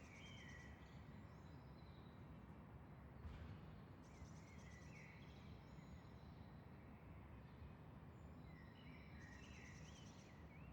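Faint early-morning birdsong: several birds chirping and calling in short rising and falling phrases over a low steady background noise, with bursts of rapid high trilling at the start, about four seconds in and again near the end.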